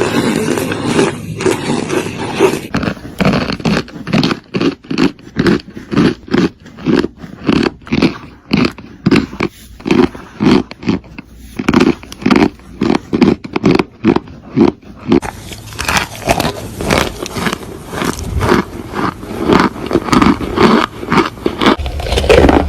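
Close-miked chewing: a mouth crunching something hard, bite after bite, about two to three crunches a second. The sound changes character about fifteen seconds in, as another recording takes over.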